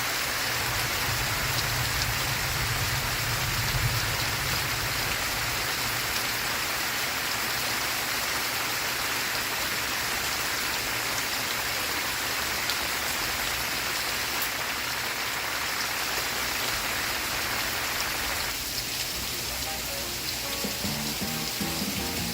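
Steady rain falling, an even hiss of drops throughout. Music comes in faintly underneath near the end.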